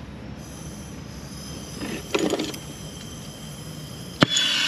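Soldering torch being lit with a flint striker: a brief clatter about two seconds in, then a sharp snap of the striker near the end, and the torch flame's steady hiss starts at once.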